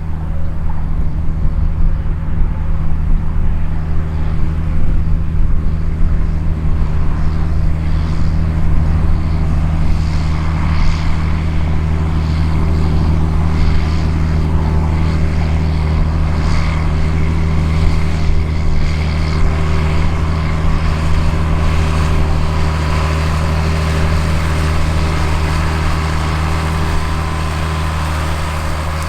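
Large diesel engine of harvest machinery running steadily under load in the field, a deep, even hum with mechanical clatter above it.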